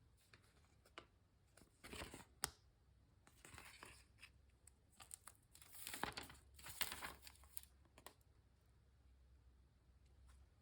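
Mechanical keyboard with lubed HMX Caramel Pudding linear switches and rubber keycaps being typed on in short bursts of soft, faint keystrokes, with a few single key presses and quiet pauses between.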